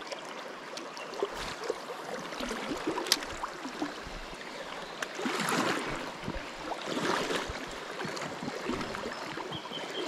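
Shallow river water flowing and rippling, with light splashing that swells twice about halfway through and a few small clicks.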